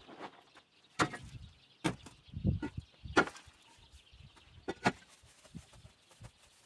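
Sharp knocks with dull thuds, irregularly spaced: four loud ones in the first five seconds, then only light ticks.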